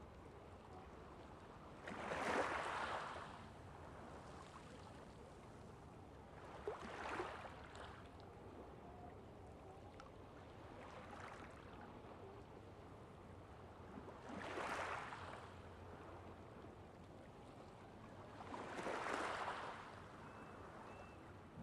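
Small waves washing onto a beach, faint, each breaking in a soft swell of noise about every four to five seconds.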